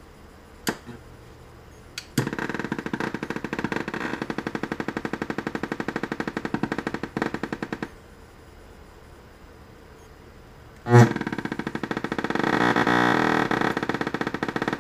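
Harman Kardon 01D430 multimedia speaker playing sound that comes and goes in two stretches, each chopped into a rapid, even chatter of many pulses a second. It starts after sharp clicks and cuts in again with a loud pop. This is the popping and distortion that the owner traces to an open, bulging 3300 µF power-supply filter capacitor.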